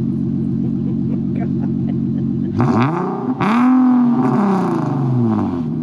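Infiniti G37's 3.7-litre V6 with a Z1 Y-pipe and exhaust cutouts, idling, then revved twice about two and a half seconds in. A short blip comes first, then a longer rev that climbs and falls back to idle near the end.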